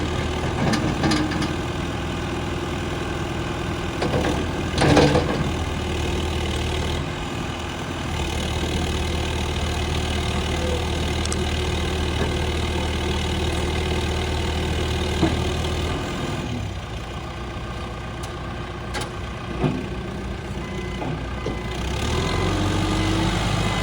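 John Deere 310SG backhoe loader's diesel engine running steadily. Its speed shifts twice, dropping about two-thirds of the way through and rising again near the end. A few short knocks break through, the loudest about five seconds in.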